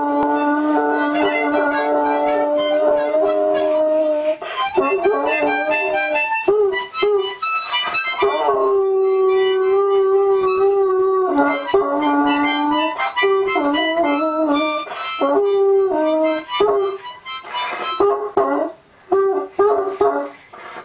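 A toddler blowing long chords on a harmonica while a bloodhound howls along with it. The harmonica starts suddenly, holds each chord for a few seconds, and breaks into shorter notes over the last few seconds.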